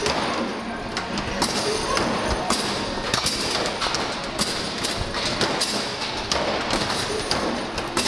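Repeated irregular thuds and knocks of rubber basketballs hitting the backboard, rim and ball ramp of a coin-operated arcade basketball machine during play, over a steady noisy din.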